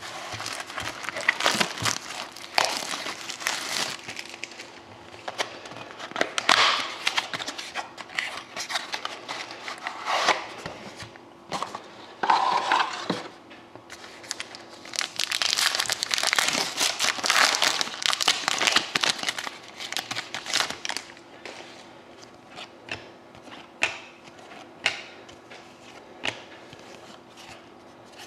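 Wrappers of 2013-14 Panini Select hockey card packs crinkling in dense bursts as the packs are handled and one is torn open. Over roughly the last seven seconds this gives way to sparse clicks and rustles of the cards being slid out.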